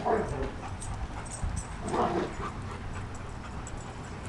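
Dogs vocalizing during play: two short calls, one at the start and another about two seconds later, over a low steady rumble.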